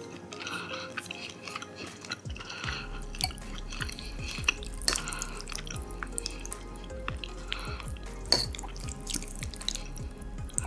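Close-miked wet eating sounds of spaghetti and meatballs in tomato sauce: chewing and a fork twirling the sauced noodles, with many small sticky clicks, over background music.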